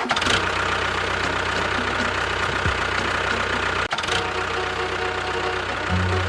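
An engine-like motor running steadily, with a brief dip about four seconds in.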